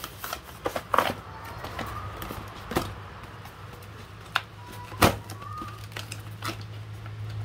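Small items and their packaging being handled: scattered sharp clicks and knocks, a few seconds apart, over a steady low hum, with a few faint short chirps.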